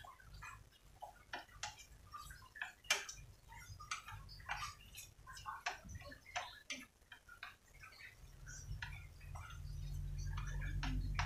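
Chopsticks clicking and scraping against a non-stick frying pan while stirring pieces of meat, in quick irregular taps. A low hum comes up from about eight seconds in.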